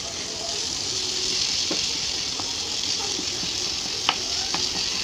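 Onion-tomato masala sizzling steadily in oil in a kadai, with a few light clicks as a spoon works the tomatoes against the pan.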